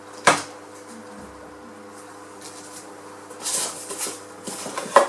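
Parts of a GSM alarm kit handled on a table: a sharp click just after the start, then rustling and light clatter of small hard items in the second half, with another sharp knock near the end.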